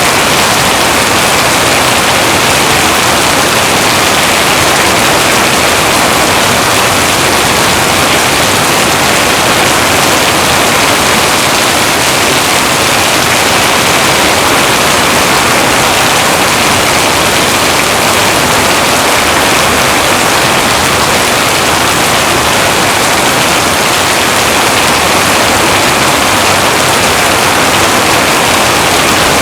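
Heavy rain falling steadily: a dense, even hiss with no breaks or thunderclaps.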